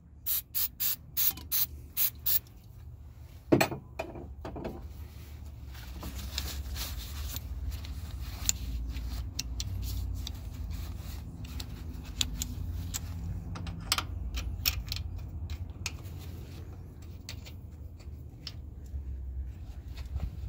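A quick series of short aerosol sprays of cleaner onto a power steering hose fitting, followed by clicks, knocks and rubbing as the hose is handled and the fitting wiped with a rag, over a low steady rumble.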